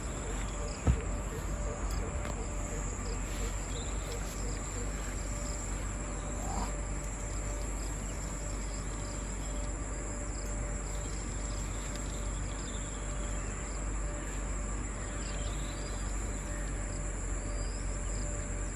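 Steady high-pitched chorus of crickets or similar insects, unbroken throughout, with a single sharp thump about a second in.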